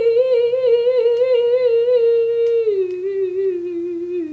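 A woman humming one long held note with a wavering vibrato, stepping down lower in pitch about two-thirds of the way through and again near the end.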